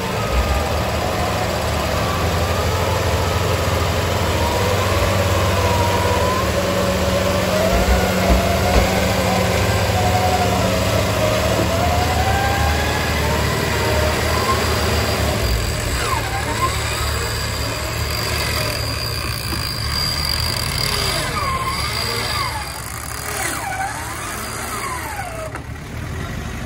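Off-road 4x4 engine running steadily under load, with a whine that wavers up and down in pitch through the first half. Fainter gliding tones follow, and the sound eases off near the end.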